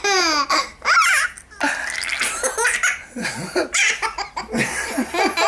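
A baby laughing in repeated belly laughs, opening with a high falling squeal followed by broken bursts of giggling.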